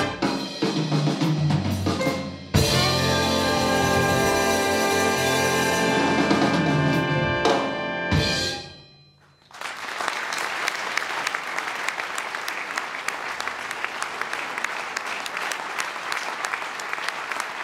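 Big band playing its closing bars: a loud drum-and-brass accent about two and a half seconds in, a long held chord from the horns, and a final hit about eight seconds in, after which the band stops. Audience applause follows from about ten seconds in, steady and even.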